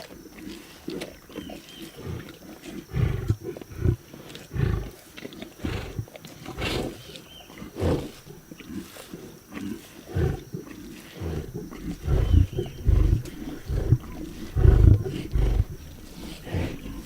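Lions growling over a zebra carcass as they feed, in irregular low bursts mixed with crackling tearing sounds. The growls are heaviest in the second half.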